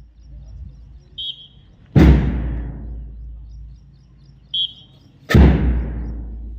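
Deep drum beats, two of them about three and a half seconds apart, each ringing out slowly, keeping time for a mass drill, with a short high peep just before each beat.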